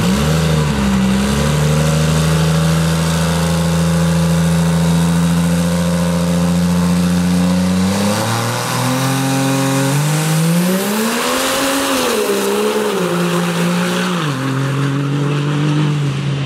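Cummins diesel drag truck's engine held at steady high revs on the starting line, then launching down the strip, its pitch climbing and falling twice as it pulls away.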